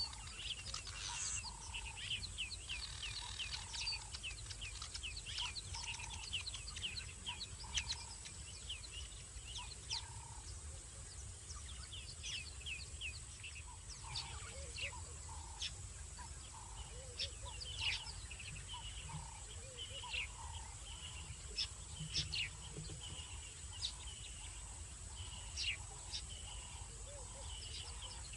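Birds chirping and calling in the bush, many short high notes overlapping, with one bird repeating a short lower note about once a second. A steady low rumble and a thin steady high tone lie underneath.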